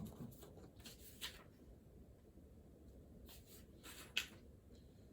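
Pen or pencil writing on paper: faint scratchy strokes in two short spells, about a second in and again around three to four seconds in.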